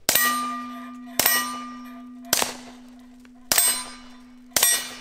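Five suppressed shots from a Walther PPK/S .22 LR pistol with an Odin Works Nav 22 suppressor, fired with Winchester Wildcat 36-grain rounds at a steady pace of about one a second. Each shot is followed by a metallic ring that fades over about a second. The pistol cycles the Wildcat ammunition reliably from shot to shot.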